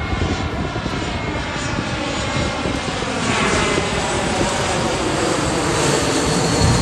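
A narrow-body twin-jet airliner passes low overhead with its landing gear down, on approach. Its engines make a loud, steady roar, and a whine in them slowly falls in pitch as it goes by.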